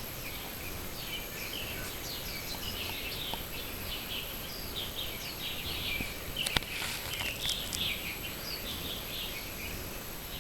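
Morning chorus of many small birds chirping and trilling over each other, with one sharp click about six and a half seconds in.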